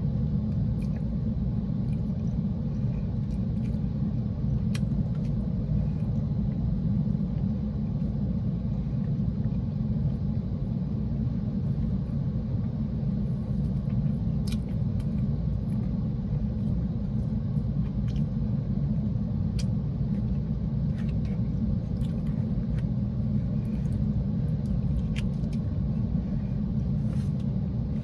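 Steady low rumble of a car's idling engine heard from inside the cabin, with a few faint, sharp clicks scattered through it.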